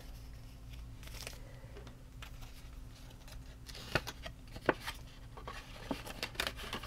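Soft, scattered rustles and light taps of paper bills and envelopes being handled, with a handful of sharper paper sounds in the second half, over a steady low hum.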